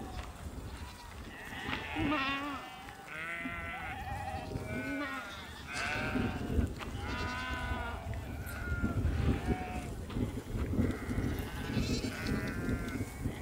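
A herd of goats and sheep bleating, many calls one after another and overlapping through the whole stretch, over a low rumble of wind on the microphone.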